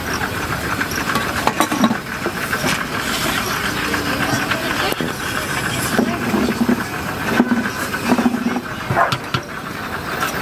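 A steel ladle knocking and scraping in a large steaming pot and against steel plates, with a few sharp clinks, over a steady hiss and background voices.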